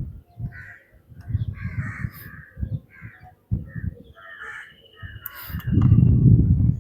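Crows cawing repeatedly, with low knocks and rumble that grow loudest near the end.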